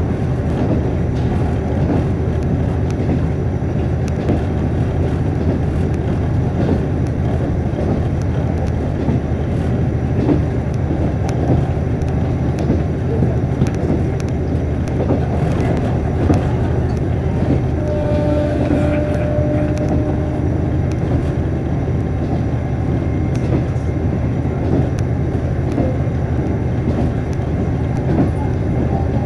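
Cabin sound of a KiHa 48 diesel railcar under way: a steady drone of the diesel engine and wheels rolling on the rails, with faint ticks. A brief pitched tone sounds about two-thirds of the way through.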